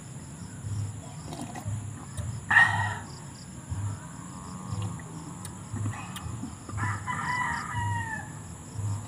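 A rooster crowing twice: a short loud call about two and a half seconds in, then a longer crow that falls in pitch at its end near the three-quarter mark.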